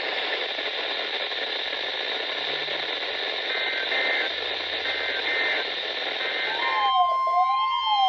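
Hiss of static from a NOAA Weather Radio receiver, with three faint bursts of the SAME header's digital data tones coming through it. Near the end the steady weather radio alarm tone starts, together with a weather alert radio's siren sweeping up and down about once every one and a half seconds, marking the start of the weekly test alert.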